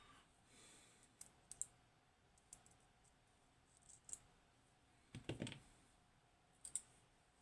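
Faint, scattered small clicks and taps of lock parts being handled while a pin-tumbler lock is taken apart, with a slightly louder knock about five seconds in.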